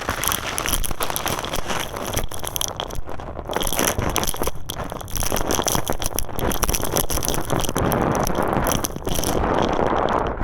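Black-dyed concrete crumbling and being crushed: a dense, continuous crackling and crunching made of many small sharp snaps.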